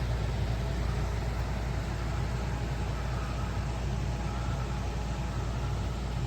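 Kamlam 14000 BTU portable air conditioner running: a steady low hum with an even rush of air.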